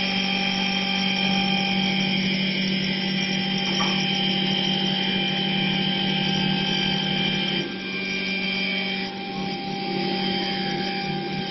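CNC wood lathe turning a wooden spindle: its motors whine steadily with several held tones while the single cutter shaves the spinning wood. About two-thirds through, the higher part of the whine drops out and the sound falls a little.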